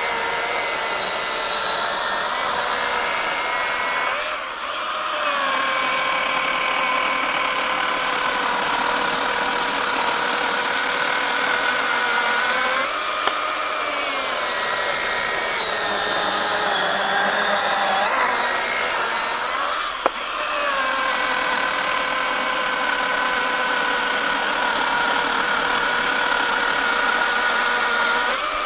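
Milwaukee M18 FUEL 2727 brushless cordless chainsaw cutting through a wet oak log, a steady high electric whine with the chain rasping through the wood. The pitch sags several times as the bar is forced hard into the cut. There is a single sharp click about two-thirds of the way through.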